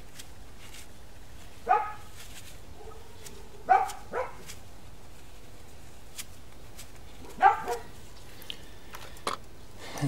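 A dog barking: four short barks, the middle two close together, each dropping in pitch.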